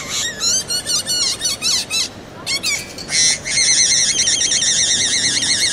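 High-pitched bird-like whistling: quick rising chirps, a short pause, then from about three seconds in a steady warbling trill.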